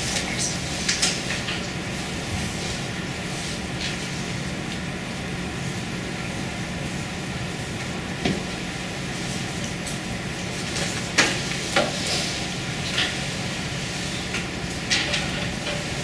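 Lecture-room background: an even hiss with a steady low hum, broken by a few small clicks and rustles, the loudest about eleven and twelve seconds in.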